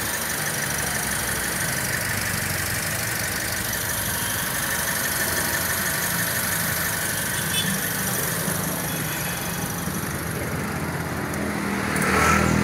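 Toyota Sienta 1.5-litre four-cylinder petrol engine idling steadily with the hood open, just after being started. A louder brief swell of noise comes near the end.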